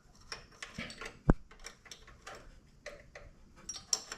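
Scattered light clicks and taps of small metal parts being handled and fitted by hand, with one sharper knock about a second in.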